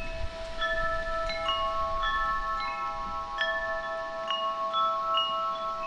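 Chimes ringing: clear bell-like notes struck at irregular moments, about one every half second, each left to ring on so that they overlap.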